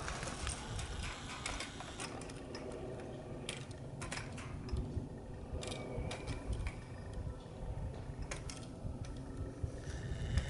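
Surface ski lift (drag lift) running empty: irregular clicking and ticking of the haul cable and hangers passing over the pulleys, with a brief squeak about six seconds in. Wind rumbles on the microphone throughout.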